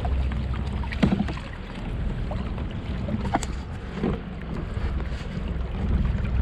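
Wind rumbling on the microphone of a camera mounted on a kayak on open water, a steady low noise, with a few light knocks about one, three and four seconds in.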